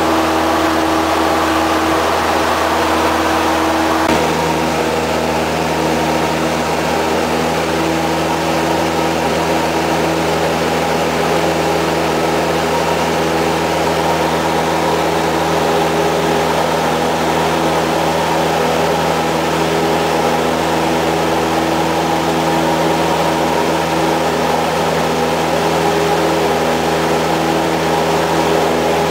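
Light airplane's piston engine and propeller droning steadily, heard inside the cabin. The engine note shifts about four seconds in, a change in power setting, then holds steady.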